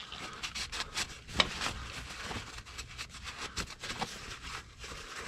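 Shop towel rubbed and crumpled over an oil filter and engine parts, an irregular scratchy rustling with small ticks and one sharper tap about a second and a half in.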